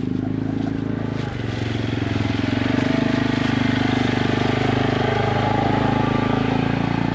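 A vehicle engine running steadily, with an even low hum and a fine rapid pulse, heard while driving.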